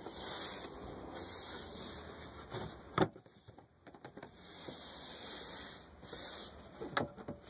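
Plastic dash trim panel rubbing and scraping against the dashboard in several short swells as it is worked into place, with a sharp click about three seconds in and another near the end.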